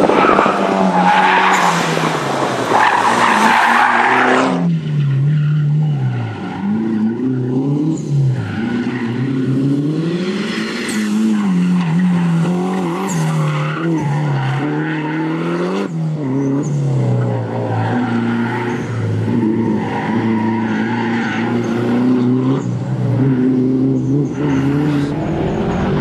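Mitsubishi Lancer Evo V rally car's turbocharged four-cylinder engine being driven flat out through a tight course, with tyre squeal during the first few seconds. After that the engine note climbs and drops again and again as the car accelerates, lifts off and changes gear between the turns.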